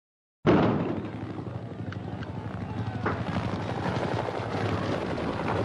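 Helicopter rotor and engine noise from old archival footage, starting abruptly about half a second in and running steadily, with a few sharp clicks.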